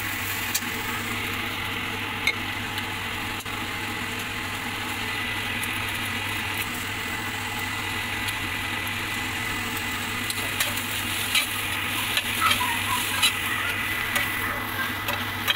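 Vegetables sizzling in a wok while a slotted metal spatula stirs and tosses them, its scrapes and clicks against the pan coming more often in the last few seconds.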